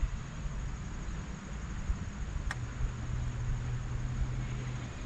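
Low wind rumble on the camera microphone over a steady outdoor hiss, with one sharp click about halfway through.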